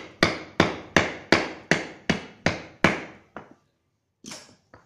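Steel claw hammer striking a socket used as a drift, about ten sharp metallic blows at a steady pace of nearly three a second, each ringing briefly, to drive a needle bearing into a Honda CB150R Pro-Link suspension linkage resting on a wooden board. The last blow is lighter, and a short clatter follows near the end.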